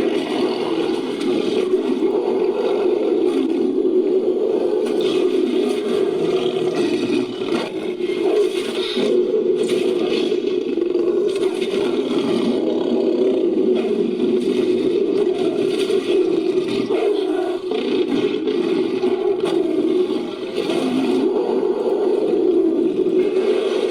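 Creature sound effect layered from animal and monster roars: a long, unbroken, rough growl that holds steady for the whole stretch, dipping only briefly now and then.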